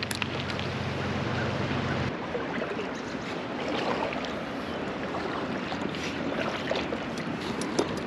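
Shallow river water running over a rocky riffle: a steady rushing. A low rumble underneath stops suddenly about two seconds in.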